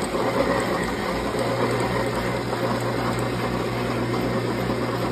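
Metal lathe running with a steady hum while two offset parting tools cut a bushing off the turning round bar stock.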